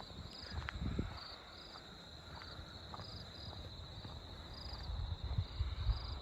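Insects singing: a steady high trill with short chirps repeating above it, over a low rumble that grows louder near the end, with a few faint knocks.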